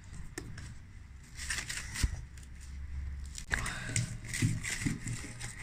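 Hands handling a ball of bread dough in an oiled glass bowl and a roll of plastic cling wrap. The sounds are light rustling and crinkling, with one sharp knock about two seconds in.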